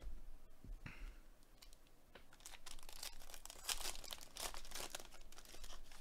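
Foil wrapper of a Panini Contenders baseball card pack being torn open and crinkled by hand: a dense crackly rustling from about two seconds in, loudest near the end, after a soft knock about a second in.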